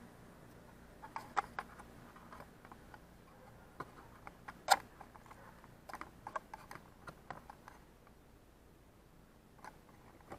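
Handling noise of a small action camera being picked up and repositioned: a scatter of clicks and taps, the loudest about five seconds in. It turns quieter after about seven and a half seconds.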